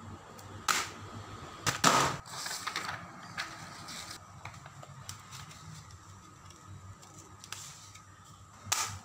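A sheet of copy paper and its plastic ream wrapper being handled: a run of short crinkling rustles and handling knocks, the loudest about two seconds in and another just before the end.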